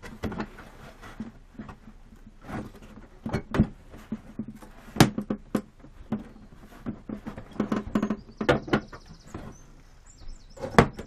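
Hands handling a foam RC plane fuselage and pressing its plastic canopy into place: irregular taps, clicks and knocks, with a brief high squeak about eight and a half seconds in.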